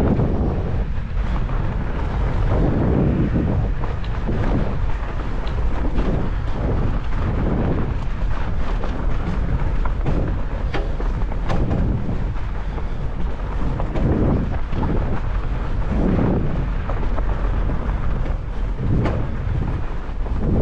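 Wind buffeting the microphone of a camera riding on a fat bike as it goes fast over a snowy trail, mixed with the rumble of the wide tyres and the knocks and rattles of the bike over the bumps. The noise swells and falls in uneven surges about once a second.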